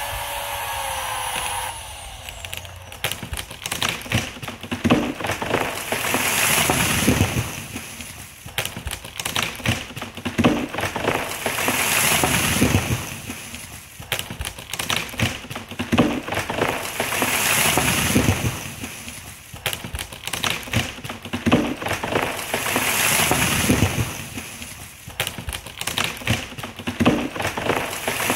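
Large silver maple limb cracking and splitting as it gives way under a chainsaw cut: a dense run of sharp cracks, with a louder swell of noise about every five to six seconds as the same break repeats.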